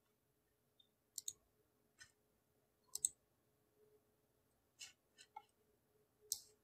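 Near silence with a faint steady hum, broken by about seven short, sharp clicks, some coming in quick pairs.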